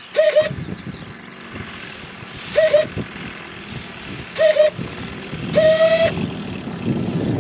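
Light tow plane's engine throttled back, a low steady drone as it comes in to land over the grass strip. Over it come four short, loud, steady-pitched calls, the last one longer, of unclear source.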